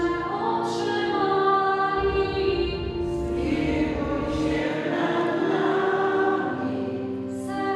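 Choir singing in long, held notes.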